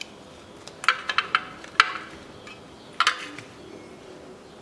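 Sharp metallic clinks as the timing-belt tensioner pulley and its spring are fitted by hand onto a Toyota 3S-FE engine: a quick run of clinks about a second in, one more just after, and another about three seconds in.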